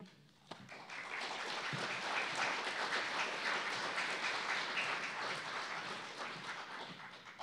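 Audience applauding, building over the first two seconds and tapering off near the end.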